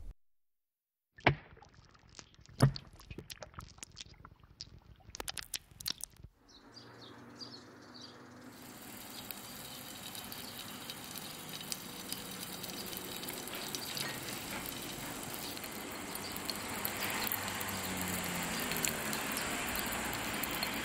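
Crisp crunching: a run of sharp cracks and crackles, two of them loud, over the first few seconds. It gives way to a steady hiss of background noise with faint chirps that slowly grows louder.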